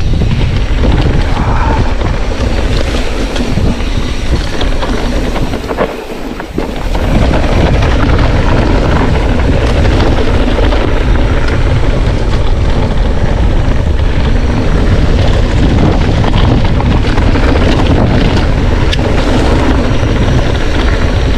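Wind buffeting the microphone over the rattle and tyre noise of a mountain bike riding down a rough dirt trail, with a short lull about six seconds in.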